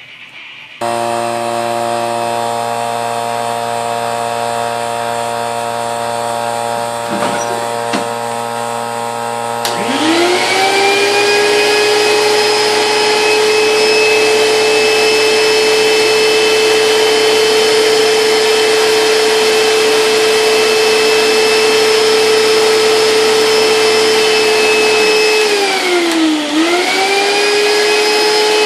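Vacuum-forming machine running: a vacuum pump starts with a steady multi-tone hum, and about ten seconds in a shop vac starts, its motor spinning up to a steady high whine under the two. The hum stops near the end while the shop vac's whine briefly sags and recovers, then sags again as it winds down.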